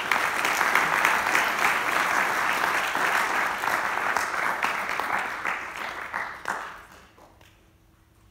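Audience applauding, a dense patter of many hands clapping that dies away about three-quarters of the way through.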